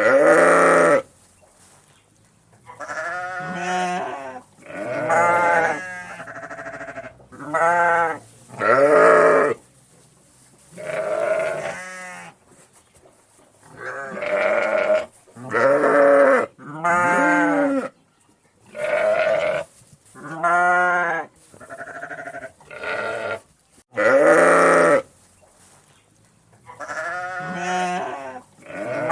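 Sheep baaing over and over: about twenty wavering bleats, each roughly a second long, following one another with short gaps and varying in pitch.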